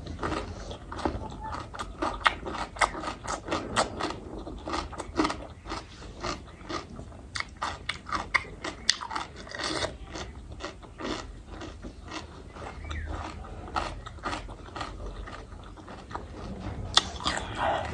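A person chewing and biting food close to the microphone: many quick, irregular wet clicks and crunches of mouth sounds while eating.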